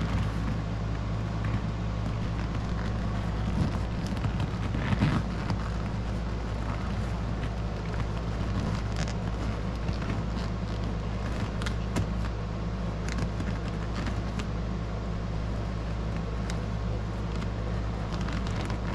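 A steady low hum throughout, with scattered light clicks and rustles as the hooks and fabric of a car seat cover are worked and tucked into the seat.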